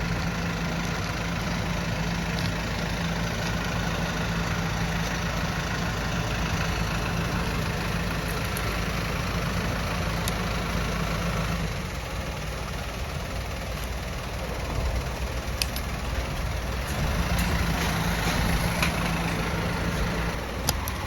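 An engine running steadily at an even idle, its hum dropping away for a few seconds past the middle and then returning.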